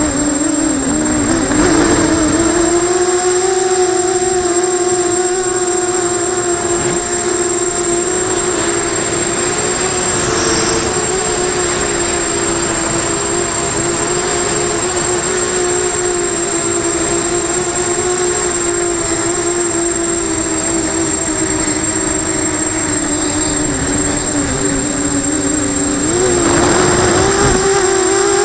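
FPV250 quadcopter's motors and propellers running with a steady, pitched whine; the pitch dips briefly just after the start, holds level through most of the flight, and rises near the end.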